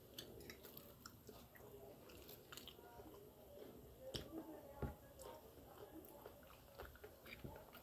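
Faint chewing and eating sounds of people chewing pasta and beef, with scattered soft clicks, a couple slightly louder about four and five seconds in.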